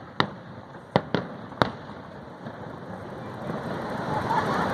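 Aerial fireworks going off: four sharp bangs in the first two seconds, two of them close together, then a wash of noise that swells toward the end.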